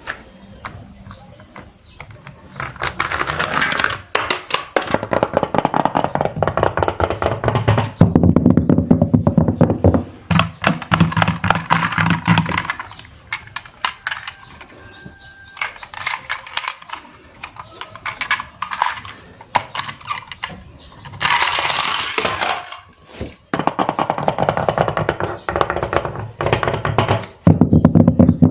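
Music in loud bursts, laced with rapid clicking and knocking.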